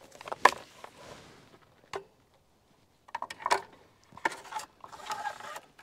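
Stihl MS-261 chainsaw and its 20-inch bar knocking against a metal chainsaw holder as the saw is lifted up and seated in it: a string of sharp knocks and rattles, the loudest about half a second in.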